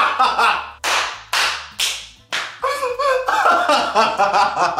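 Two people laughing hysterically in quick, high-pitched bursts, broken up near the middle by four loud hand claps about half a second apart.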